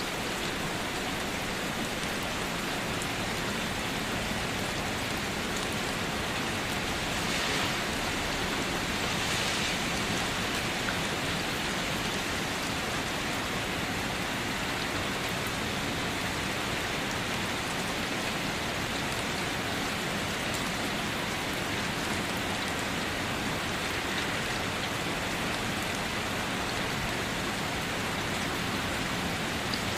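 Steady light rain falling and pattering on surfaces, an even hiss with no thunder.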